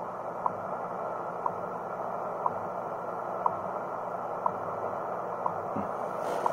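SuperSonic SC-3201BT boombox radio tuned to a shortwave time-signal station, playing short second ticks, one each second, over steady shortwave hiss.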